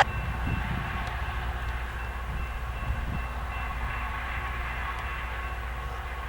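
Loram RG400 series rail grinder's diesel engines running steadily with a low rumble as it begins moving slowly on the siding, with a faint repeating high tone over it.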